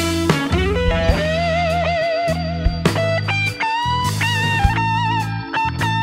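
Instrumental music led by an electric guitar playing long held notes with vibrato and pitch bends over a steady backing with percussion hits.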